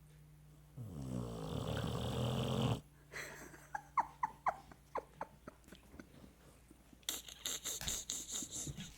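Pit bull snoring while asleep: one long, low, rasping snore starting about a second in and lasting about two seconds. It is followed by a string of short squeaks and, near the end, a noisy hiss.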